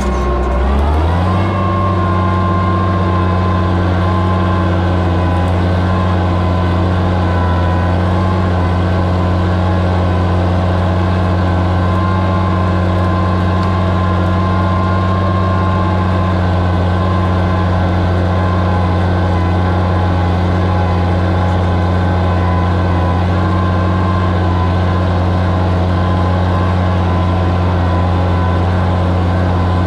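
Oliver 77 tractor's six-cylinder engine working under load pulling a plow. It picks up speed in the first second, then runs at steady revs.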